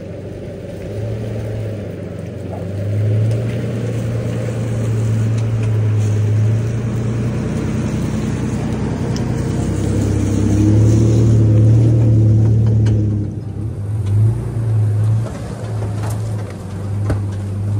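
Pickup truck engine running at low revs as the truck crawls slowly over rocks on a dirt trail, a steady low drone that swells and eases with the throttle and wavers a little past the middle. A few faint knocks from the tyres and body working over the rocks.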